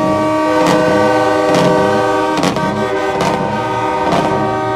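Several truck air horns held on together in a steady chord of overlapping pitches, as a salute, over loud music with a steady beat and a repeating bassline.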